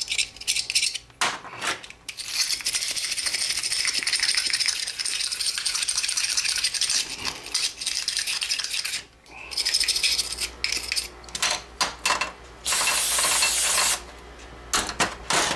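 Aerosol cleaner sprayed onto outboard carburetor parts: one long hiss of about seven seconds, then a second, shorter burst a few seconds later, to clean rust and dirt from the parts. Small metal parts clink and knock on the steel bench before and between the sprays.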